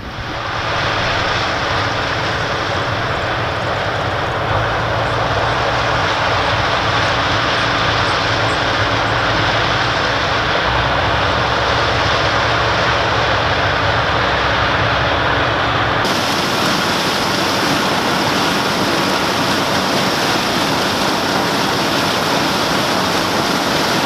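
A 1977 Gleaner M2 combine running at work in standing corn, its engine and threshing machinery making a loud, steady drone. The sound shifts abruptly about two-thirds of the way through and becomes brighter.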